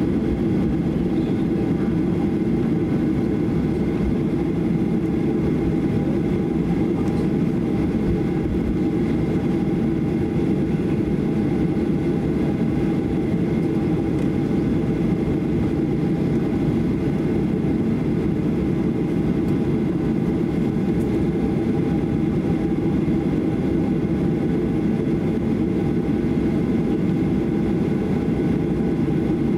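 Cabin noise of a Boeing 737-800 taxiing, heard from a seat over the wing: its CFM56-7B engines running steadily at taxi power, a low rumble with a few steady whining tones above it.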